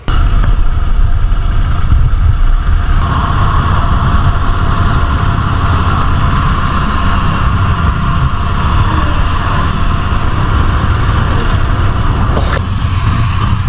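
Royal Enfield 650 parallel-twin motorcycle engine running steadily while riding along at road speed, with wind noise over the microphone.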